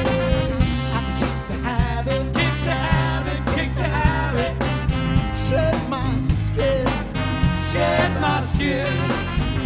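A live band playing an instrumental stretch: a steady drum beat and bass under a lead melody line that bends in pitch.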